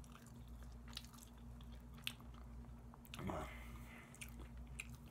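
A person chewing soft, gelatinous barbecue chicken close to the microphone, with scattered wet mouth clicks and a short louder mouth or throat noise a little past three seconds, over a steady low hum.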